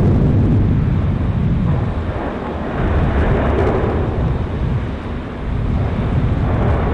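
Wind buffeting the microphone: a loud, uneven low rumble, with a gust of hiss about three to four seconds in.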